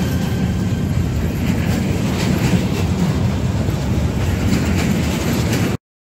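Freight train of covered sliding-wall wagons rolling past close by: a steady rumble with wheels clacking over rail joints. It cuts off abruptly near the end.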